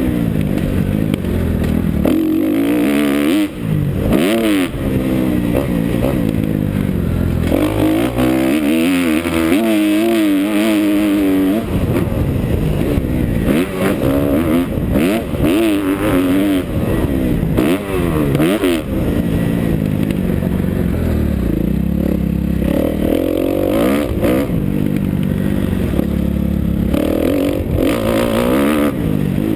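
Kawasaki KX250F four-stroke single-cylinder motocross engine heard from the rider's helmet, revving hard and backing off over and over as the bike accelerates, shifts and slows along the dirt track, its pitch climbing and dropping many times.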